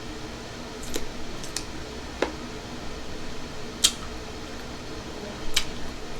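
Eating sounds: about five sharp wet clicks and smacks, spread out, over a faint steady hum.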